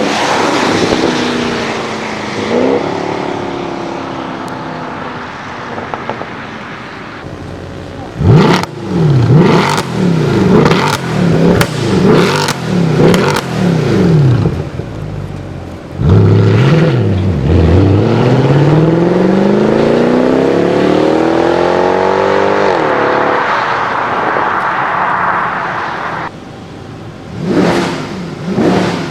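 Mercedes-Benz E63 AMG V8 through an X-pipe exhaust. The engine note falls away at first, then comes a run of about seven quick throttle blips, then a long pull with the pitch climbing for several seconds before the throttle lifts. Two more revs come near the end.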